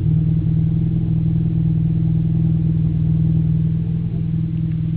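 Car engine idling steadily, its exhaust giving a low, even drone.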